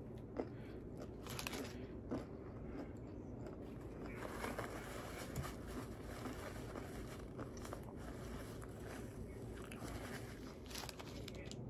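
Close-up chewing and biting of crispy Popeyes fried chicken, wet mouth sounds with a few sharp crunches of the breading scattered through.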